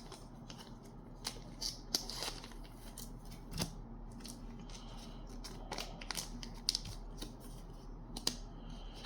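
Pokémon trading cards handled and slid into plastic holders by hand: faint rustling of plastic with scattered light clicks and ticks.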